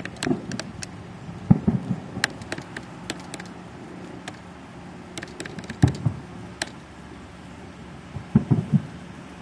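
Fireworks in the distance: scattered sharp pops and crackles, with dull booms about a second and a half in, again around six seconds, and a quick cluster near the end, over a faint steady low hum.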